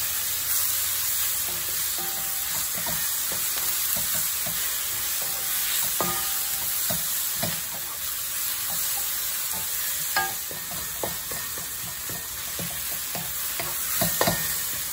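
Sliced shallots, garlic and chopped tomato sizzling in oil in a hot stainless steel wok, sautéing until the shallots turn transparent and the tomato softens. A wooden spatula stirs them, knocking and scraping against the pan in frequent short strokes over the steady sizzle.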